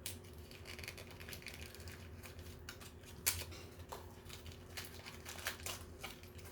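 Packaging crinkling and rustling as a wrapped mini toy is handled and opened, with scattered light clicks and ticks over a faint steady hum.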